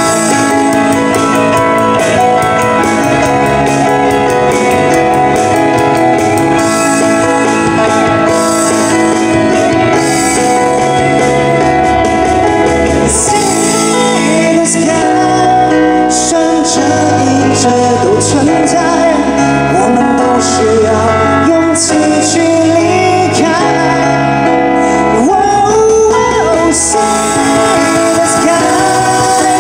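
Live band performing a pop song, with keyboards and drums; a male lead voice singing into a microphone comes in partway through.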